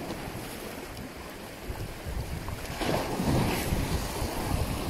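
Wind buffeting the microphone over the sound of sea waves washing, with a louder rush about three seconds in.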